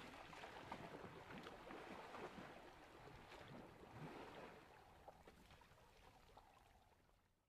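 Faint splashing and sloshing of river water as African elephants wallow and push through it, fading out over the last couple of seconds.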